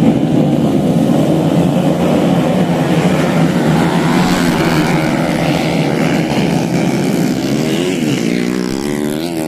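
Engine of a modified underbone grasstrack motorcycle running loudly and steadily, its pitch dipping and then climbing again near the end as it is revved.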